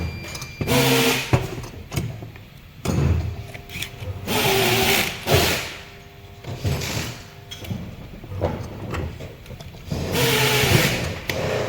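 Kitchen food waste disposer motor running in short bursts of about a second each, starting and stopping several times, with a hum in each burst.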